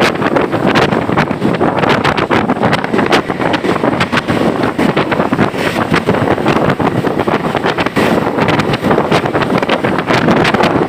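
A moving bus in pouring rain: a loud, steady rush of wind and rain, with many sharp ticks scattered through it.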